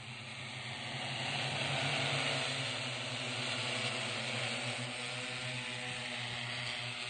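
Multirotor agricultural spraying drone's rotors humming steadily as it flies low over a field, spraying. The hum grows louder over the first two seconds as the drone comes nearer, then holds.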